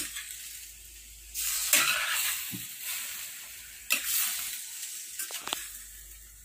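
Marinated pork pieces sizzling in a stainless steel frying pan as they are stirred. The sizzle swells suddenly about a second and a half in and again at four seconds, fading after each, with a few short clicks near the end.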